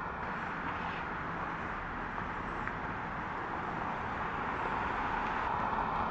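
Steady road traffic noise from passing vehicles, with no siren sounding.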